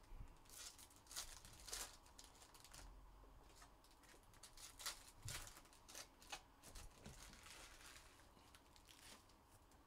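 Faint rustling and crinkling of Topps baseball card pack wrappers and cards being handled during a box break, a series of short, irregular crinkles and flicks.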